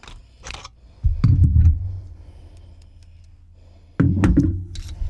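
Metal camera-grip gear (a friction arm with a grip head and small light) being handled and set down on a desk: a few small clicks and knocks, and two heavy low thuds, one about a second in and one near the end.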